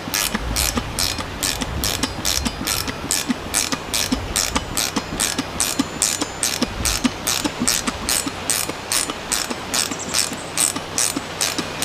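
Ratcheting box-end wrench clicking steadily, about three clicks a second, as it turns a large lag bolt down into a wooden stump.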